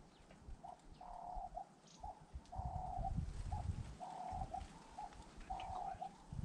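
A dove cooing a repeated phrase, a short note followed by a longer one, over and over about every second and a half. A low rumble comes in underneath a couple of seconds in.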